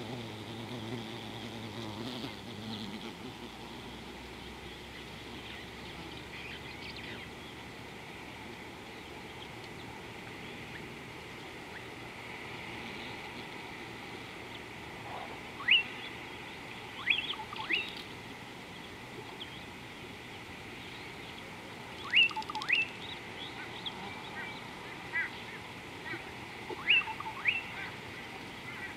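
Birds calling: short, sharp, quickly sweeping call notes in small clusters, starting about halfway in and recurring several times, over a steady outdoor background hiss.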